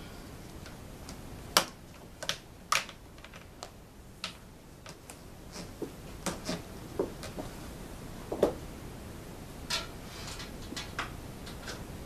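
Scattered light clicks and knocks as a vacuum cleaner's power cord is unwound, carried across the room and plugged in. The vacuum motor is not running.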